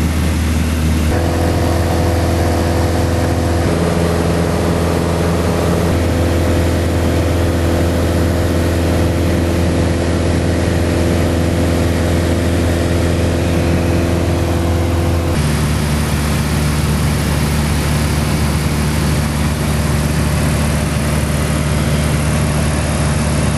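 Steady drone of a single-engine light aircraft's engine and propeller, heard inside the cockpit in flight; the mix of tones changes abruptly about fifteen seconds in.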